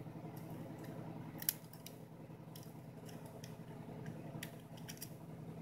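Small sharp clicks of steel tweezers against a thin metal bracket and the camera's metal frame as the piece is fitted, with one louder click about a second and a half in, over a faint steady hum.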